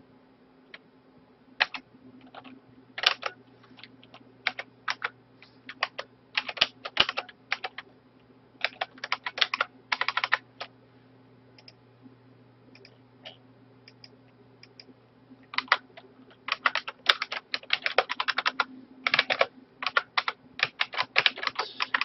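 Typing on a computer keyboard: runs of quick keystrokes in two spells, with a pause of a few seconds midway.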